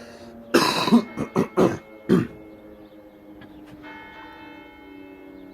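Church bells ringing, their tones hanging on, with a new strike near the middle. About half a second in, a few loud short bursts from a person's voice, like coughing or throat clearing, break over the bells for under two seconds.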